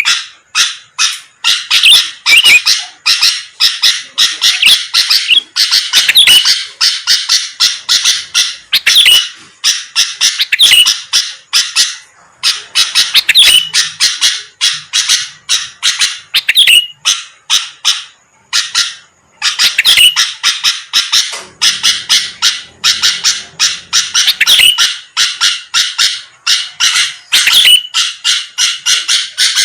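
Sooty-headed bulbul (kutilang) singing in a fast, loud run of short chattering notes, a few each second, with brief pauses.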